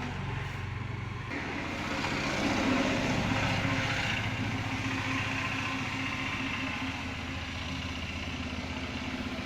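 An engine running steadily; about a second in, a louder hissing noise joins it and carries on.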